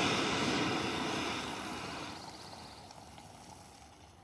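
Backpacking camp stove burner running at full flame with a steady rushing noise, which dies away over the last two seconds as the flame is turned down.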